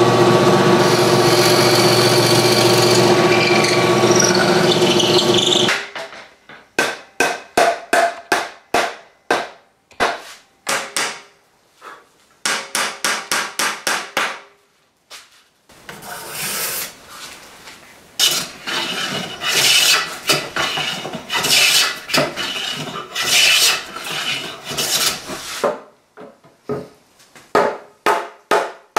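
Drill press running and boring into oak for about six seconds, a steady motor hum under the cutting, stopping suddenly. Then hand work on the oak: a long run of separate strikes or strokes at about two to three a second, a denser stretch of scraping in the middle, and more regular strikes near the end.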